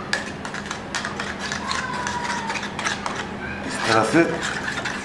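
Metal spoon stirring a thin egg-and-milk mixture in a small metal pan, with quick light clicks and scrapes of the spoon against the pan's bottom and sides.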